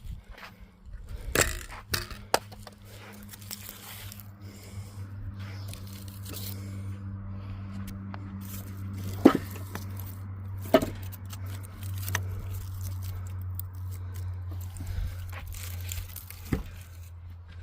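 Scraping and handling noises with several sharp knocks, over a steady low hum.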